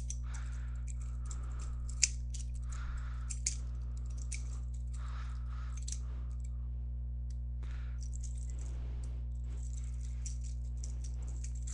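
Butterfly knife flipped by hand, its handles clicking and rattling against the blade, with a sharp click about two seconds in and another a second and a half later, over a steady low hum.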